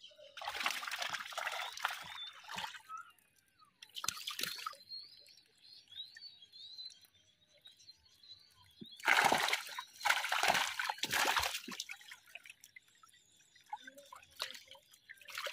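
Water splashing and trickling in the bottom of a wooden boat in four short bursts, as fish are freed from a wet fishing net and flap in the water there.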